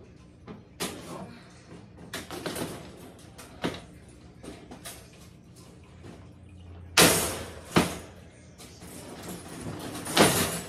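Folding wire dog crate being unfolded and set up: its metal wire panels rattle and clink, with a loud metal clatter about seven seconds in, another just after, and a third near the end.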